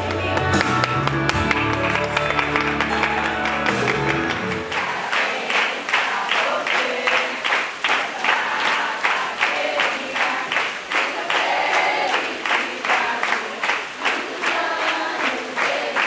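Music with sustained low notes for the first few seconds, then a group clapping in a steady rhythm with voices singing along.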